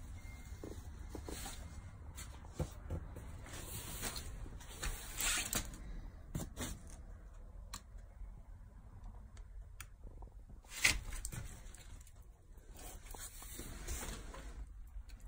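Scattered rustling and knocking handling noise as someone moves among stacked cardboard cases, with a sharper knock about eleven seconds in, over a low steady rumble.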